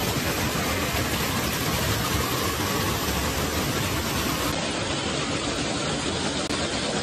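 Water-park splash-pad fountain jets gushing and splashing down into shallow running water, a steady rush.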